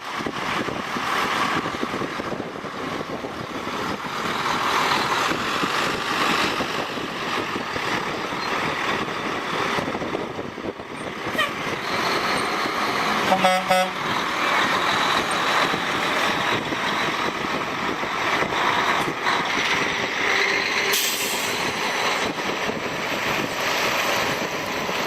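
Steady rushing background noise with a short vehicle horn toot about halfway through.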